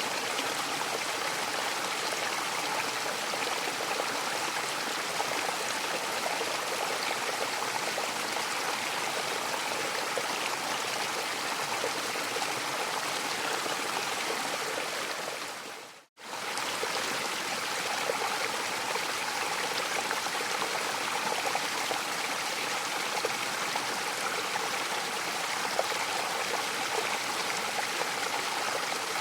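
Mountain waterfall rushing steadily in an even hiss of falling water. About halfway through, it briefly fades out to silence and fades straight back in.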